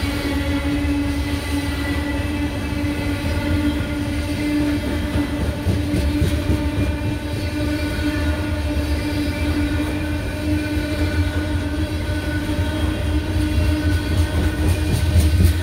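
Loaded coal hopper cars of a freight train rolling past at close range: a steady rumble of steel wheels on the rails, with a steady ringing tone held over it.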